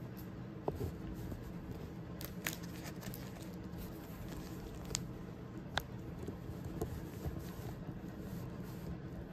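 A clear plastic zip-top bag of incense sticks being handled, crinkling, with a few sharp clicks scattered through, the loudest just before the six-second mark. A faint steady hum sits underneath.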